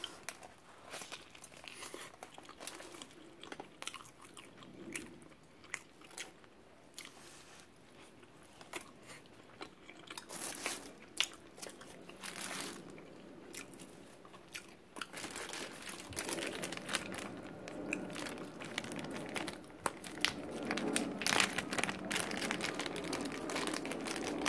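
Close-up eating sounds: biting into and chewing a big burrito, with wet mouth clicks. A paper and foil wrapper crinkles as the burrito is handled, and a plastic bag rustles near the end.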